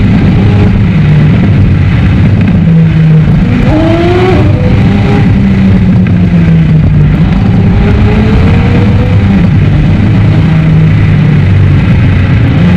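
McLaren 765LT's twin-turbo V8 heard from inside the cabin at highway speed: a loud, steady engine drone over road noise. Its pitch steps up and down, with a short rising rev about four seconds in. The footage runs at three times speed with the pitch kept normal.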